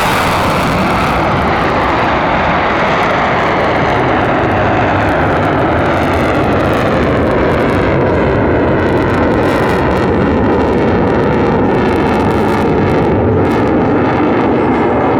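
USAF F-35A Lightning II's single F135 jet engine at high power, a loud steady rumble as the jet moves away. The high hiss fades over the first couple of seconds, and the sound slowly falls in pitch through the rest.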